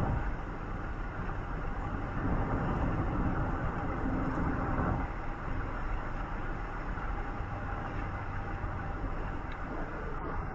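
Steady running noise of a moving vehicle: a continuous low rumble with road-like hiss above it, and a lower hum that eases off about halfway through.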